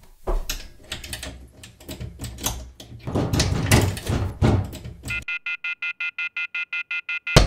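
Clattering and knocking for about five seconds, then a rapidly pulsing electronic ring, about ten pulses a second, for about two seconds before it cuts off.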